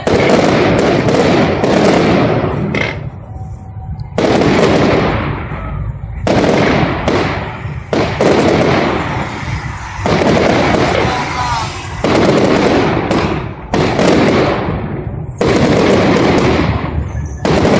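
Fireworks display: aerial shells bursting overhead one after another, about every two seconds, each sharp bang followed by a long fading crackle of the burst's stars.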